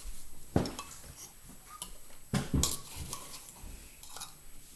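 Spoons, cups and containers clinking and knocking as they are handled on a counter: a sharp knock about half a second in, two more close together around two and a half seconds, and lighter clicks between.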